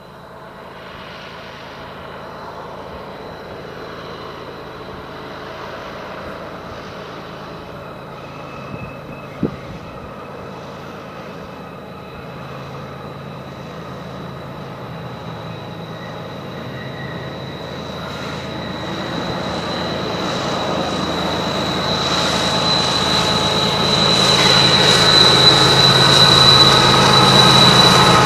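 BNSF freight train led by GE Evolution-series diesel locomotives approaching round a curve and growing steadily louder, with a continuous high wheel squeal. The locomotives' low engine rumble builds near the end as they draw close. There is a single brief sharp knock about nine seconds in.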